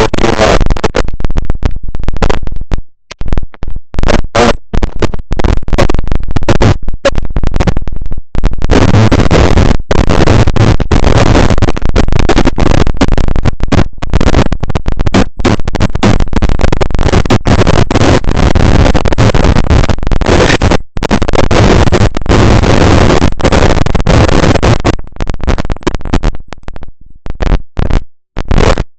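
Loud, harsh microphone static from a faulty mic, a continuous crackling hiss that keeps cutting out in brief drop-outs.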